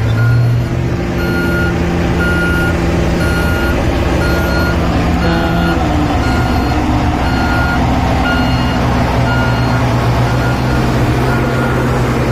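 Reversing alarm on a heavy construction machine beeping steadily, a little over one beep a second, over the machine's engine running: the machine is backing up.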